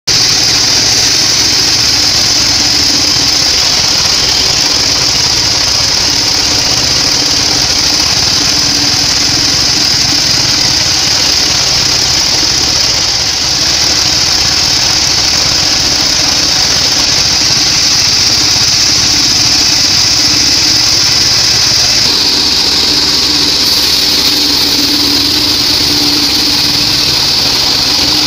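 Sawmill bandsaw running and sawing weru timber: a loud, steady high-pitched hiss over the drone of its drive motor.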